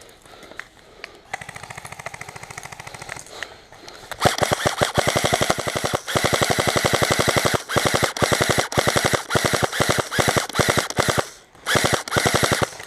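Airsoft gun firing on full auto: a fainter rapid burst about a second in, then loud, long rattling bursts of rapid fire from about four seconds in, with a brief pause near the end before one more burst.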